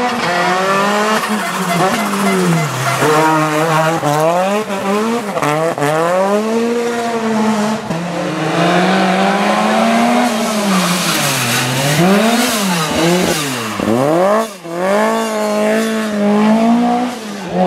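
Rally car engines revving hard on a closed stage. Their pitch climbs through the gears and drops sharply on lift-off and downshifts, several times over.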